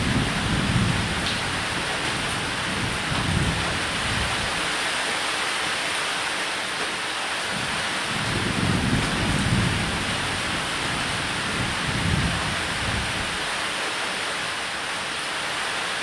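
Steady heavy rain on a roof, with low thunder rumbling in and out several times.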